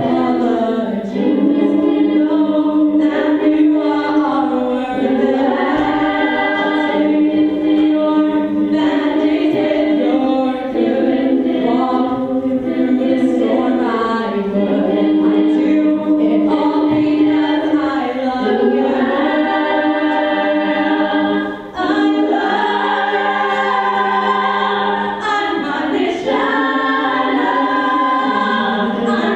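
All-female a cappella group singing into handheld microphones: a soloist in front over held backing chords sung by the rest.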